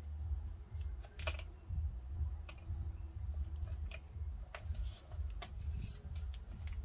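Card stock and paper being handled on a craft cutting mat: a scattering of light clicks and taps as a paper topper is pressed down and pieces are slid about, over low bumps on the table.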